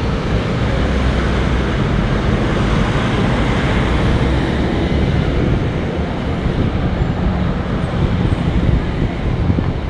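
Steady road traffic noise: cars driving past close by, engines and tyres on the road.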